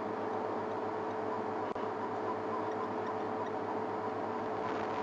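Game-drive vehicle's engine idling: a steady hum with a light, regular ticking.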